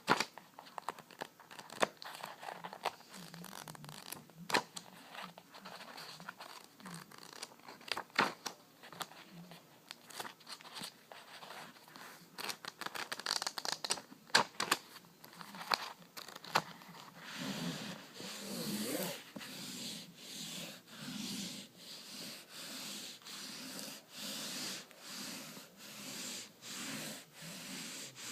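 Close-up crinkling and crackling handling noises with sharp clicks. About two-thirds of the way through these give way to steady back-and-forth rubbing strokes, roughly one a second.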